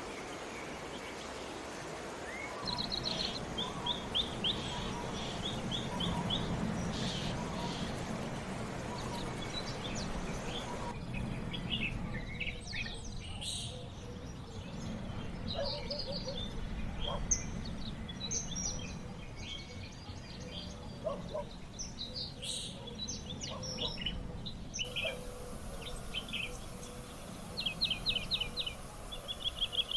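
Birds calling: quick series of short high chirps in rapid trains a few seconds in and again near the end, with scattered single chirps between, over steady background noise that changes abruptly several times.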